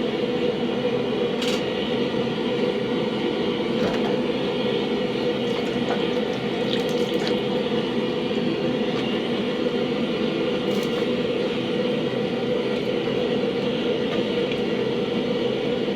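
Forge running with a steady, even roar, with a few faint clicks.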